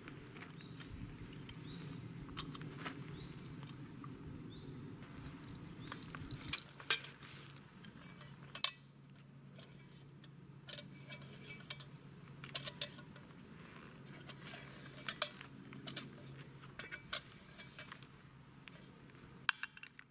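Metal camp cups and utensils clinking and knocking, in short sharp clinks scattered throughout.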